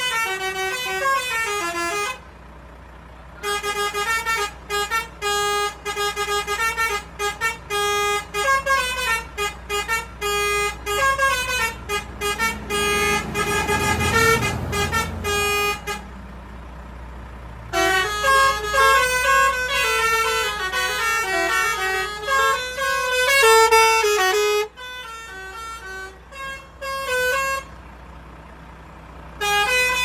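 Volvo lorry's telolet horn, a multi-trumpet musical air horn, playing fast runs of short notes as a tune, with brief pauses about two seconds in, around the middle and near the end. A low rumble swells and fades around the middle.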